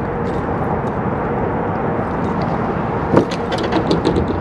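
Steady low outdoor noise with no clear source, joined in the last second or so by a few short, sharp clicks and rattles.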